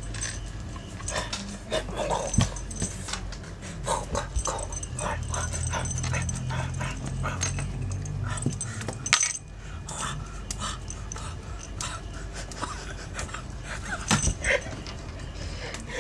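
A cat scuffling and rolling with a plush toy on a wooden surface: scattered soft taps, thumps and rustles of fur and fabric, with a low steady drone in the middle.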